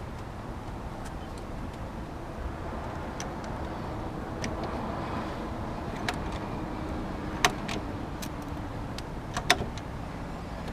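Heavy-duty Stanley hand rivet gun being worked on a rivet, with several sharp clicks from the tool as it grips and pulls the rivet. Steady traffic noise runs underneath.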